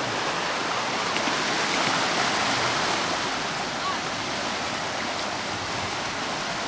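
Creek running at high water: a steady rush of fast-flowing water.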